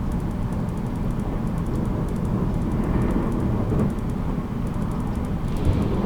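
JR Kyushu 783 series limited express heard from inside its motor car MoHa 783-13, running along the line: a steady rumble of wheels on rail and running gear.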